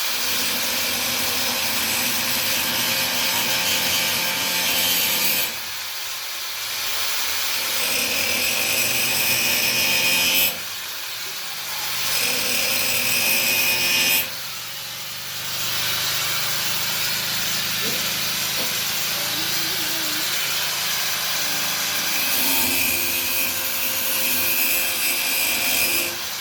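Power tool cutting in long runs of several seconds, with short breaks about 5, 10 and 14 seconds in. It is a continuous rasping cut, as of a saw working through wood.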